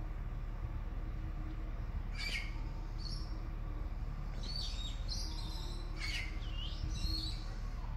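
Birds calling: short high chirps and down-slurred calls, scattered about two, three and five to seven seconds in, over a steady low rumble.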